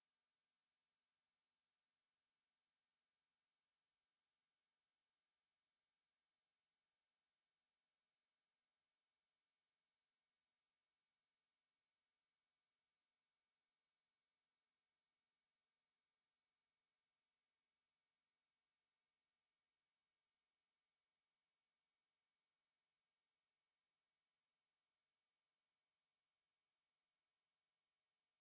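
Pure 7632 Hz sine-wave test tone: a single steady, very high-pitched whistle at constant level, used to check speakers or headphones.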